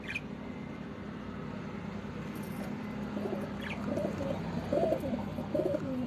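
Domestic pigeons cooing: a run of low, wavering coos that starts about halfway through and comes more often towards the end.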